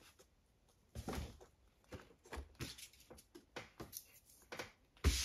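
Handling noise from a clear plastic watch box turned in the hands: irregular light clicks, taps and plastic rustles, with one louder knock about five seconds in.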